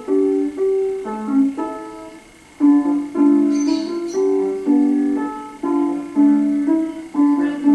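Piano music: a slow melody over chords, each note struck and left to fade, with a short pause a little over two seconds in before the playing picks up again.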